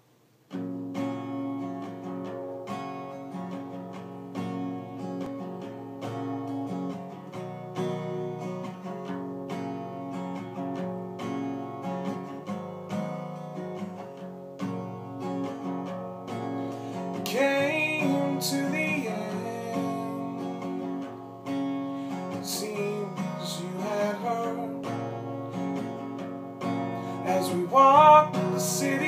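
Acoustic guitar song introduction: repeated plucked notes over held chords, with a higher sliding melody line coming in briefly about two-thirds of the way through and again, louder, near the end.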